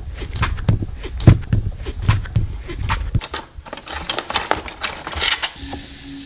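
Potter's tools and a sponge handled in a plastic tub: irregular knocks and clatter for about three seconds, then softer scraping and rubbing. A high hiss and a pulsing hum come in near the end.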